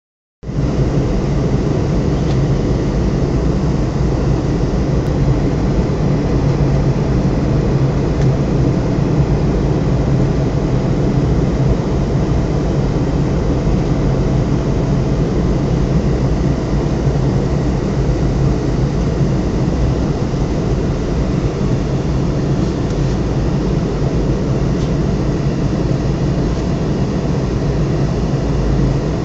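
Steady cabin noise of a Boeing jetliner in flight: the constant rush of jet engines and airflow heard from inside the cabin, heaviest in the low end with a steady hum beneath it.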